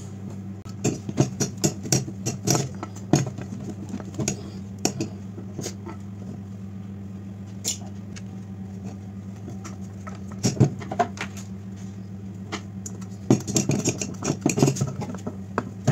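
Small screws being driven with a hand screwdriver through an LED board into a metal street-light housing: irregular clicks, taps and metal-on-metal scraping in clusters, over a steady low hum.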